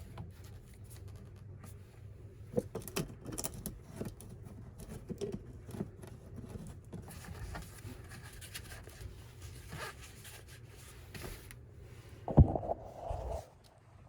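Scattered scraping, rustling and clicking of objects being handled, with one loud knock about twelve seconds in.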